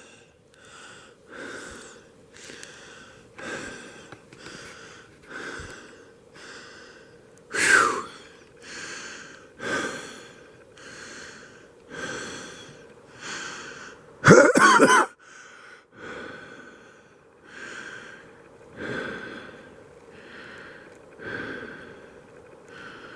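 A man breathing hard in and out, about one breath a second. There are louder voiced breaths about 8 seconds in and, loudest, around 14 to 15 seconds in.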